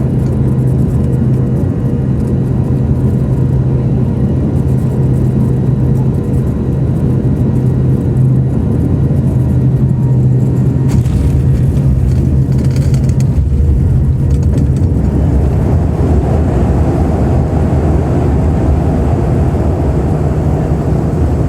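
Passenger aircraft droning steadily as it comes in to land, with a low engine hum under a rush of noise. About fifteen seconds in, the hum fades and a rougher, fuller rush takes over.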